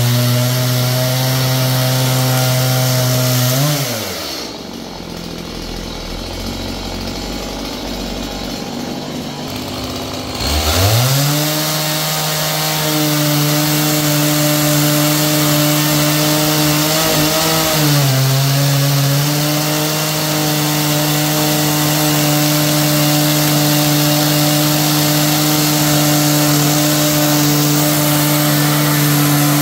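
Petrol chainsaw cutting into an old wooden beam at high revs. About four seconds in it drops to a low idle for several seconds, then revs back up around ten seconds in and runs steadily through the cut, with a brief dip in revs midway.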